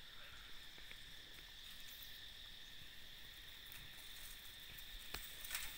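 Faint, steady high-pitched drone of insects, with a few short clicks near the end.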